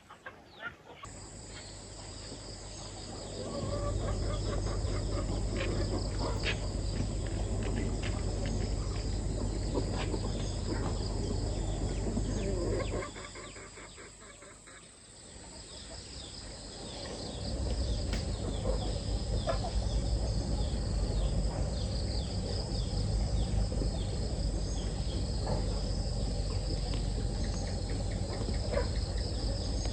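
Insects chirring steadily and high-pitched, with scattered clucks from chickens, over a loud low rumble. The rumble drops away for a few seconds about halfway through, then returns.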